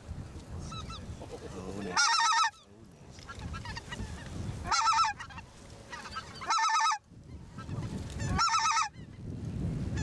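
Goose calls: four loud bursts of rapid honking, about two seconds apart, each cutting off sharply, with fainter honking between them.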